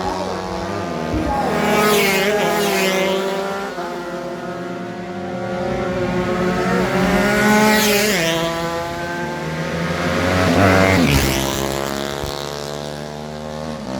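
Several racing motorcycle engines, two-stroke and four-stroke, running hard and revving as the bikes race. Bikes pass close by about two, eight and eleven seconds in.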